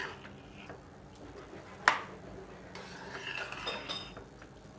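A metal ladle stirring a thick, watery rice-and-lentil mixture in a pressure cooker pot, with one sharp clink of the ladle against the pot about two seconds in and softer stirring sounds after.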